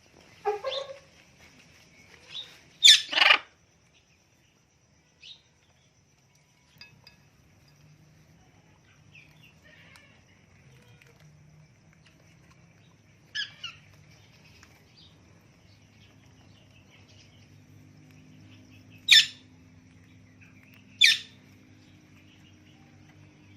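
A parrot calling in short, loud squawks, spaced out: a pair about three seconds in, another pair about midway, and two single calls near the end.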